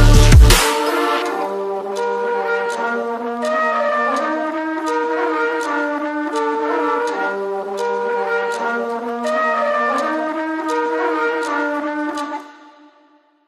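Closing bars of an electronic trap track: a last heavy bass hit at the very start, then a melody of long held notes stepping up and down over faint sharp ticks, fading out about twelve and a half seconds in.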